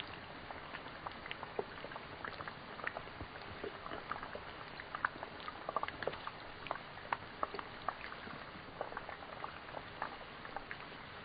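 Food cooking, bubbling and sizzling: a steady hiss dotted with frequent small pops and crackles.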